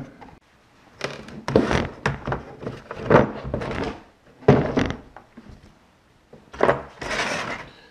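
A hard plastic tool case being handled and opened: a tap-and-die set's lid, foam layer and tray knocked and set down, with about five separate thunks and rattles of plastic and loose metal pieces.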